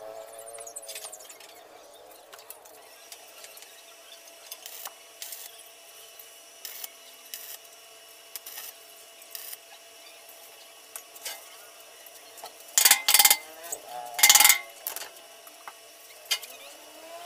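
Stick-welding arc on steel crackling in two short bursts of about half a second each, a second apart, as tack welds are struck. Before them come scattered sharp clicks over a faint steady hum.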